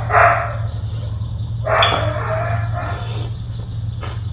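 Eating sounds: a spoon and fork working rice noodles and water spinach in a bowl of soupy sauce, with a sharp click of the utensils about two seconds in, then the noodles slurped into the mouth near the end. A steady low hum and a high insect buzz run underneath.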